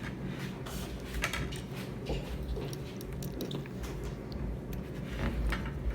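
Eating sounds: wet chewing and biting, with small irregular clicks and smacks scattered through over a steady low background hum.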